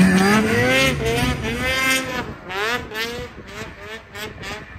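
Snowmobile engine revving up and down several times as the sled pushes through deep powder snow. It is loudest about the first second or two.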